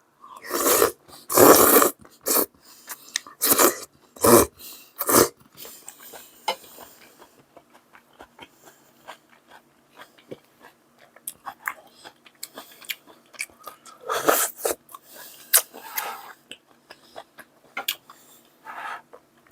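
A person chewing and crunching food close to the microphone: several loud crunching bites in the first five seconds and again around 14 to 16 seconds in, with softer chewing and small mouth clicks between.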